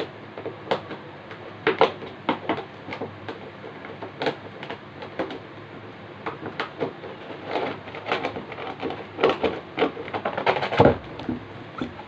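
Clear plastic packaging crinkling and rustling as it is handled and pulled open, in irregular crackles that grow louder and denser about nine to eleven seconds in.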